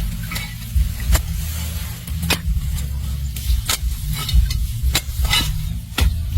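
A digging tool striking earth in a steady rhythm, about once every second or so, over a steady low rumble.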